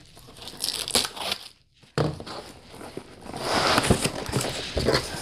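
A box cutter slicing the packing tape on a cardboard box, then the cardboard flaps being pulled open, scraping and rustling, with a brief gap about a second and a half in.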